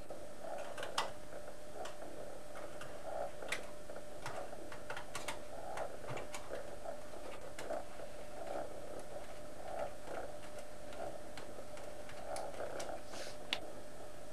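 Scattered light metallic clicks and small scrapes of the two hex standoff screws being unscrewed from a monitor's VGA connector and set down on the sheet-metal chassis, over a steady hum. The sharpest clicks come about a second in and near the end.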